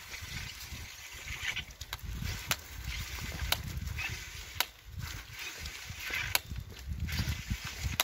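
Footsteps squelching through slush and mud on an unpaved road, with a sharp click at each step about once a second, over a low rumble.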